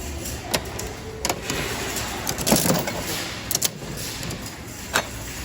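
Steady low background rumble with a few scattered clicks and knocks, the strongest a short rattling knock about two and a half seconds in.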